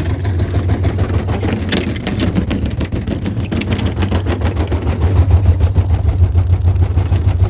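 Washing machine running: a loud, steady low hum with a fast, even rattle over it, getting a little louder about five seconds in.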